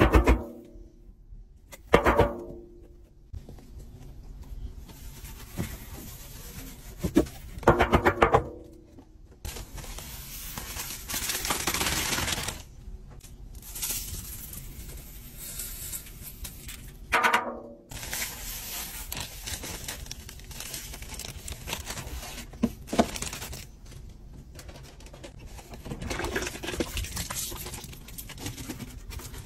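Laundry powder and scent beads pouring into a stainless-steel washer drum: a granular hiss and rattle, with several short loud rattles of the containers being shaken and a longer hissing pour near the middle.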